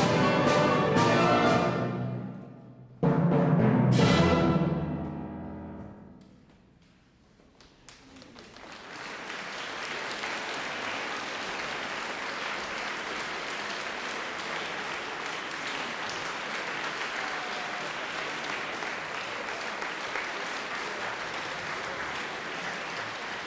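A symphony orchestra with piano ends on loud closing chords with a crash of clash cymbals, the last one struck about three seconds in and left to ring out and die away. A few seconds later the audience breaks into steady applause that carries on.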